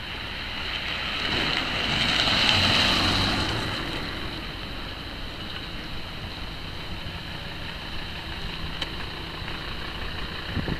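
A motor vehicle passing, its engine and tyre noise swelling to its loudest about three seconds in and then fading, over a steady background noise.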